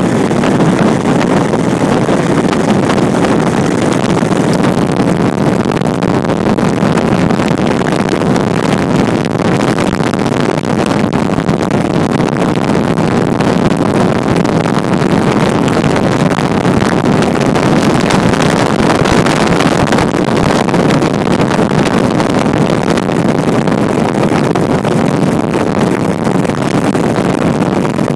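A motorboat running fast: an unbroken loud rush of engine and water, with some wind on the microphone.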